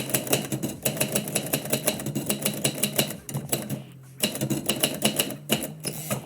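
Typewriter keys being struck in quick runs of clicks, as a line of a poem is typed. The typing pauses about three seconds in for roughly a second, then resumes.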